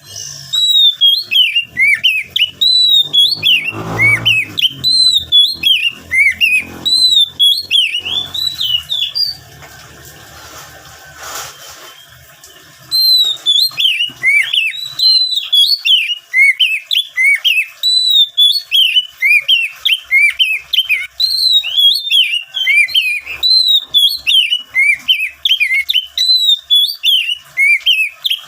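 Oriental magpie-robin (kacer) singing vigorously ('gacor'): a rapid, continuous run of quick rising and falling whistled notes. The song breaks off for about three seconds partway through, then resumes.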